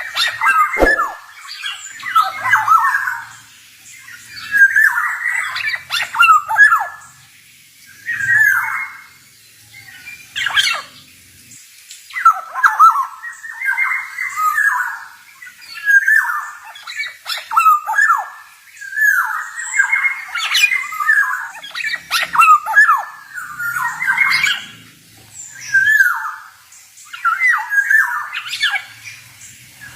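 Male black-naped oriole singing over and over, short phrases of whistled and harsh, squawky notes coming one every second or two.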